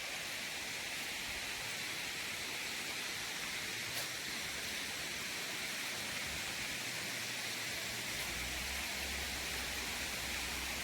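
Hector Falls, a waterfall, rushing steadily as an even hiss of falling water, with a low rumble joining about eight seconds in.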